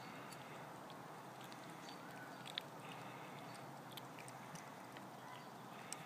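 Cats eating from a metal bowl: faint scattered clicks and crunches over a steady hiss, with one sharper click a little before halfway.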